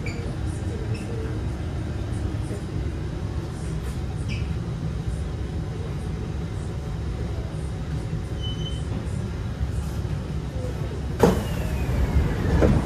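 Singapore MRT East West Line train heard from inside the car: a steady low rumble, with a sudden sharp knock about eleven seconds in, followed by a falling whine and a louder rush near the end.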